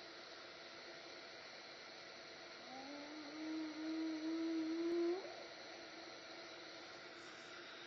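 A hyena calling once: a single long whoop about three seconds in that starts low, holds with a slight rise, then sweeps sharply upward and cuts off. A steady hiss runs underneath.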